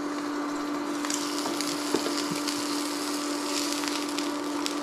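Eggs frying in a non-stick pan: a steady sizzle with small crackles over a steady hum, and a light tap about two seconds in.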